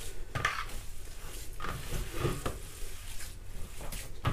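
Bare hands kneading and squeezing raw ground beef meatloaf mixture in a large bowl, in irregular wet strokes.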